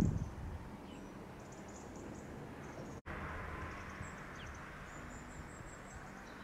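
Quiet rural outdoor ambience: a faint steady hiss with scattered faint high-pitched chirps. The sound drops out for an instant about three seconds in, where the footage cuts.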